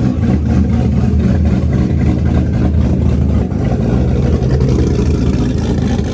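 A car engine running loudly nearby, a steady deep rumble that holds much the same pitch.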